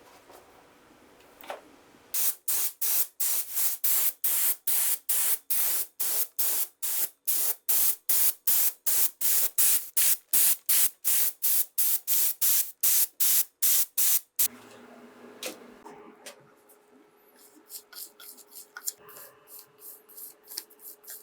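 Spray paint hissing out in quick, evenly spaced short bursts, about three a second, for roughly twelve seconds. Near the end come fainter, quicker puffs.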